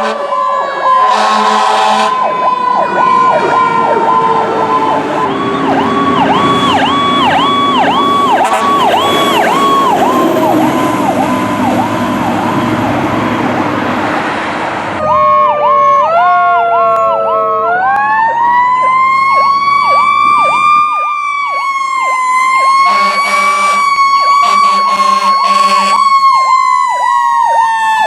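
Emergency vehicle sirens sounding the Powercall tone: a rapid pulsing siren note that dips and snaps back about three times a second, layered over other sirens wailing slowly up and down. About halfway through it switches abruptly to another vehicle.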